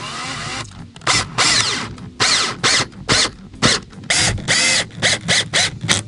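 Cordless drill driving 3/4 inch wood screws into plywood, run in a long series of short trigger bursts with the motor's whine rising and falling in pitch.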